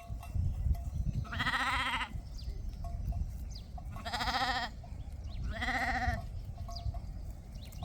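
Sheep bleating three times, each a wavering call under a second long, spaced a couple of seconds apart.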